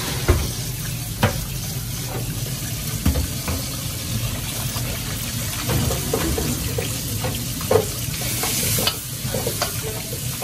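Stir-frying in steel woks over high gas flames: a metal ladle clanks and scrapes against the woks as noodles and vegetables are stirred and tossed, with several sharp knocks and frying sizzle over a steady low rumble. A brighter burst of sizzling comes near the end.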